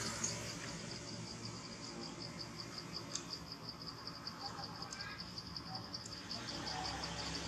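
Faint insect chirping in a fast, even pulse, about six or seven high-pitched chirps a second.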